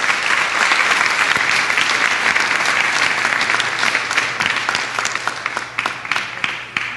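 An audience applauding at the end of a lecture: many hands clapping densely, thinning to scattered claps and fading out near the end.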